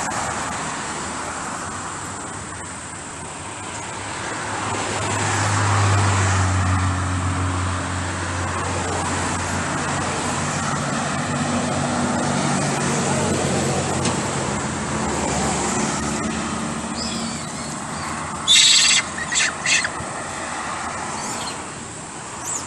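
Road traffic passing, a steady hiss with a vehicle's engine hum swelling and fading about five seconds in and another passing a few seconds later. Near the end, three short loud sounds come in quick succession.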